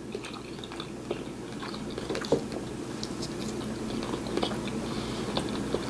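Close-up chewing of a mouthful of soft chorizo egg scramble, with many small wet mouth clicks scattered irregularly throughout.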